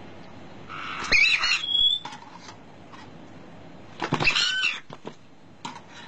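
White-bellied caiques calling, two short bursts of high, wavering calls about a second in and about four seconds in. A short click follows near the end.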